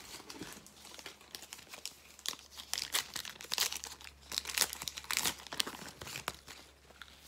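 A plastic card-pack wrapper is torn open and crinkled in the hands: a long run of irregular crackles and rustles.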